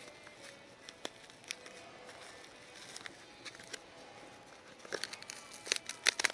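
Scattered sharp clicks and crinkling handling noises, sparse at first, then coming thick and loud in a cluster near the end.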